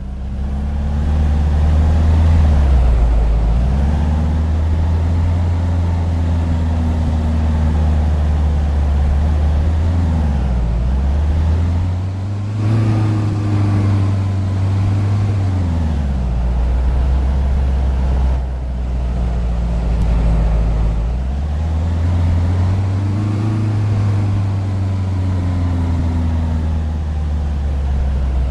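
A vehicle's motor running loud and steady, its low hum rising and falling in pitch several times as it speeds up and slows down.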